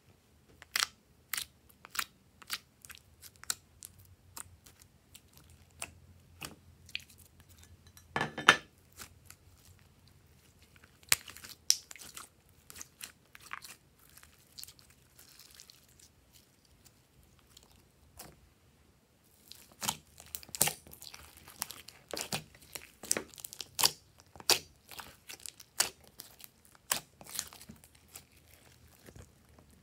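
Glossy slime being squeezed, stretched and kneaded by hand, giving sharp wet clicks and pops. They come sparsely at first, with a louder crackling burst about eight seconds in, then thick and fast through the second half.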